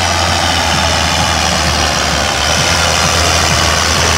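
John Deere 7710 tractor's six-cylinder turbo diesel running steadily and loudly under load as it pulls a heavy weight-transfer sled down the pulling track.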